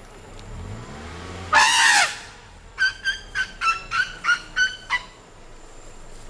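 A male Asian elephant trumpets once, a short loud blast falling in pitch, then a quick run of about eight short, high-pitched honks follows.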